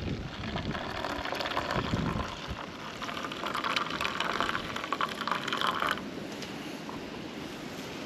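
Hot water pouring into a cup of instant coffee mix in a steady stream for about six seconds, then stopping suddenly.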